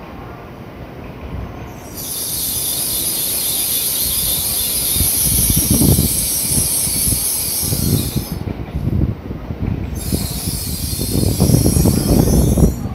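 N700A Shinkansen train rolling slowly into the station to stop. A high-pitched hissing squeal sets in about two seconds in, breaks off briefly near eight seconds and returns until just before the end, over a low uneven rumble from the train.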